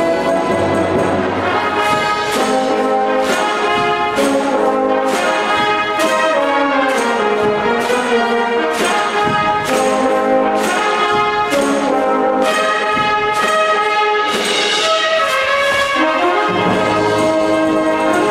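Brass-led band music with a steady beat, accompanying a cheerleading routine.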